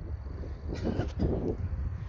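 Wind rumbling on the microphone outdoors, with a few short noisy bursts about a second in.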